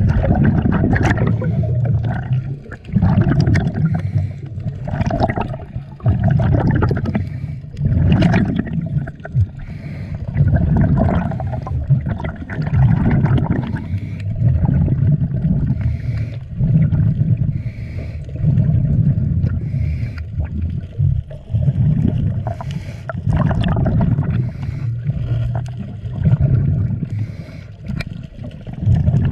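Water noise recorded underwater: a low rumbling that surges and fades every second or two, with scattered sharp clicks.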